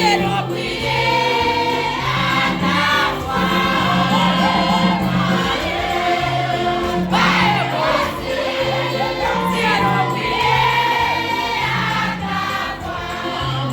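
Church choir singing with instrumental accompaniment, a bass line moving in even, held notes beneath the voices.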